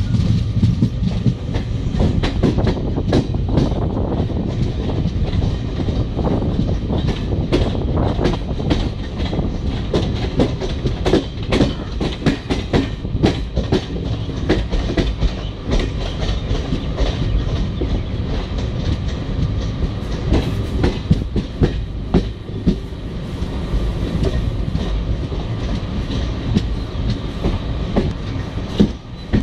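Passenger train running on board, heard from inside the coach: a steady rumble with a rapid, irregular clatter of wheels over rail joints and points.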